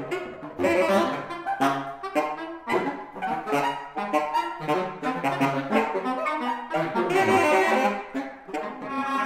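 Saxophone quartet of soprano, alto, tenor and baritone saxophones playing free improvisation: many short, overlapping notes starting and stopping in quick succession, loudest and most raspy about seven seconds in.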